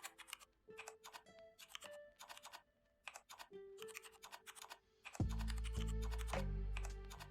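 Computer keyboard typing in quick, irregular clicks over background music; the music's bass comes in loudly about five seconds in.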